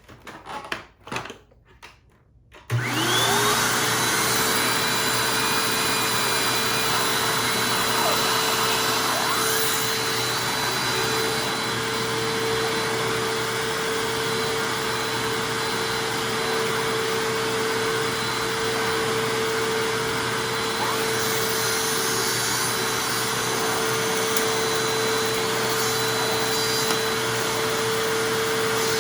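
A few clicks, then about three seconds in a Hoover Anniversary vacuum cleaner is switched on, its motor spinning up quickly to a steady whine and running without change, driving a suction-powered turbo brush attachment.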